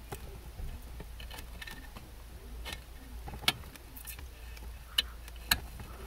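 Small sharp clicks and taps of metal tweezers and a soldering iron tip against a surface-mount tantalum capacitor while desoldering it from a circuit board: a few scattered ticks, the sharpest about halfway through and twice near the end.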